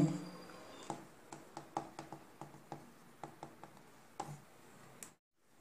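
Marker pen writing on a white board: a run of faint short ticks and taps as the pen tip strikes and strokes the surface.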